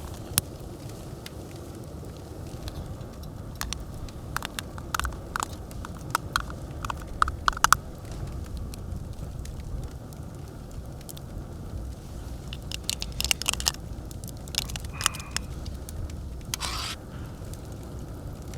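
Wood campfire crackling, with a steady low rush and scattered sharp pops and snaps, a burst of them about halfway through.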